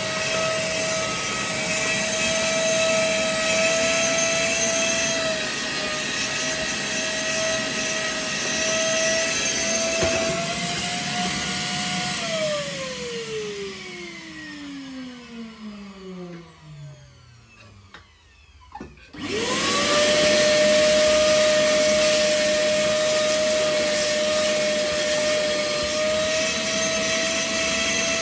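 Vacuum cleaner motor running steadily with a whine. About twelve seconds in it is switched off and winds down with a falling pitch. About seven seconds later it is switched back on, quickly comes up to speed, and runs on.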